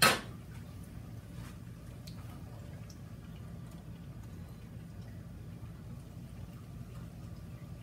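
Mackerel patties frying in shallow oil in a cast-iron skillet: a faint steady sizzle with a few small pops, over a low steady hum. A sharp clatter right at the start.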